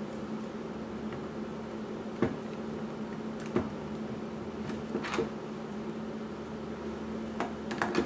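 A few short clicks and knocks from handling a mirrorless camera and its zoom lens, about two seconds in, at three and a half seconds, around five seconds and a cluster near the end, over a steady low hum.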